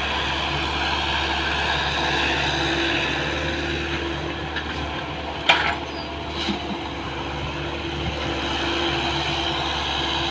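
Heavy diesel engine running steadily, with a sharp knock about five and a half seconds in and a fainter one about a second later.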